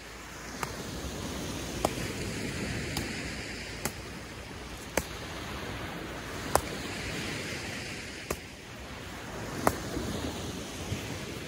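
Small surf breaking and washing along the shore under a steady hiss of wind, with a sharp click close by every second or so at uneven spacing.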